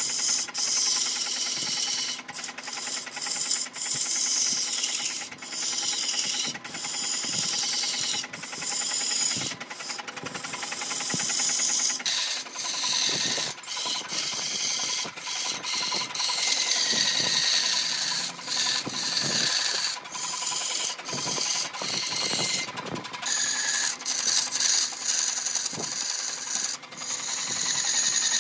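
A tool scraping across wood in repeated strokes, with short breaks between strokes, over a steady faint hum.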